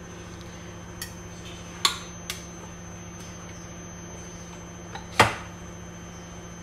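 Four sharp clinks of a metal knife against a bowl and the cake plate while whipped cream is scooped onto a cake layer and spread, the loudest about five seconds in, over a steady low electrical hum.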